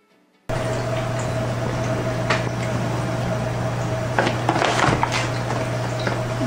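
Loud steady mechanical hum and hiss with a constant low drone and a steady mid-pitched tone, starting abruptly about half a second in. A few soft rustles and taps come about two seconds in and again around four to five seconds in.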